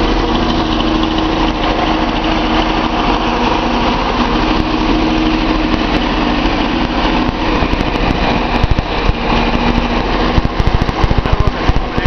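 Datsun 280Z's L28 inline-six engine running with a misfire on cylinder six, which the owner puts down to a partly clogged fuel injector running that cylinder lean. From about eight seconds in, irregular sharp pops and ticks stand out over the steady engine drone.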